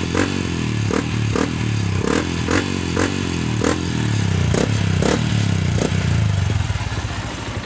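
Yamaha Sniper 150's single-cylinder four-stroke engine held at about 4,000 rpm, breathing through an Exos X-6 aftermarket exhaust, with a sharp click about every half second. Near the end the revs drop back toward idle.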